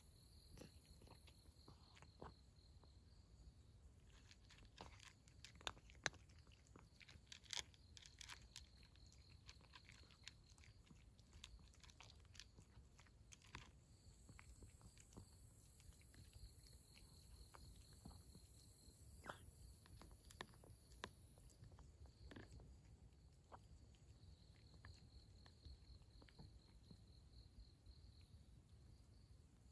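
A cat crunching dry kibble: a scatter of crisp crunches and clicks, thickest a few seconds in and again about two-thirds of the way through.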